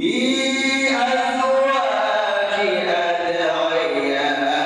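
A man reciting the Quran in melodic tajweed style, a single voice drawing out long held notes that glide in pitch. It starts suddenly right after a silent pause.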